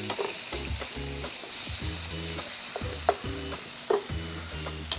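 Sliced button mushrooms, onions, green chillies and tomato pieces sizzling in hot oil in a non-stick frying pan while a wooden spoon stirs them, with a few sharp knocks of the spoon against the pan, the loudest a little after three seconds and near four seconds.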